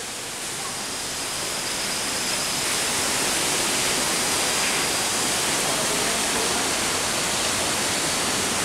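Steady rushing water noise that swells a little over the first few seconds and then holds even.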